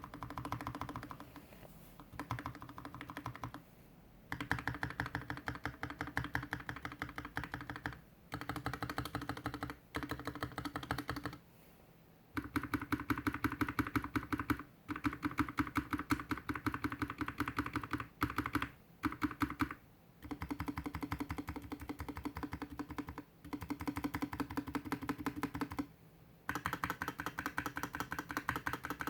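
Typing on a GK61X mechanical keyboard with stock Tecsee Blue Velvet linear switches, a stainless steel plate in a plastic case and DSA keycaps, sitting on a desk mat. Alpha and modifier keys go down in quick runs of clicks, broken by short pauses every few seconds.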